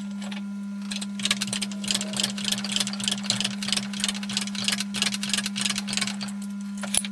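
A homemade hydraulic bench vise closes on a square steel tube and crushes it, with rapid irregular ticking and clicking from about a second in until near the end, over a steady low hum.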